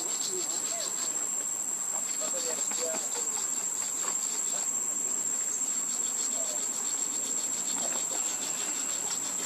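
Insects buzzing in one steady high note, with a few faint short chirps now and then.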